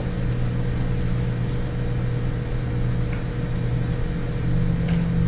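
Steady low hum of the recording's background noise, with a couple of faint ticks.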